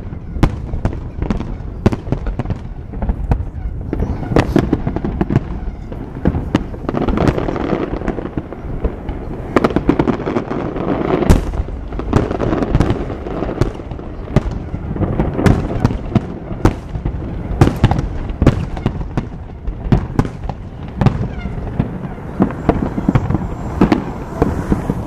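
Aerial firework shells bursting in a dense barrage: many sharp bangs in quick, irregular succession over a continuous low rumble.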